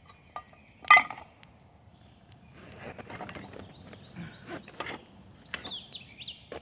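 Camping gear being handled and repacked by hand: a sharp clank about a second in, then a few seconds of rustling and knocking.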